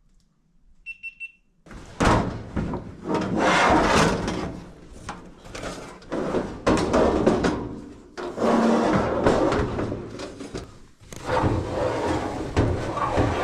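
Parts of a Whirlpool Duet front-load washer being handled and fitted back together: loud clattering, scraping and knocks of metal and plastic parts that stop and start abruptly, after a single short electronic beep about a second in.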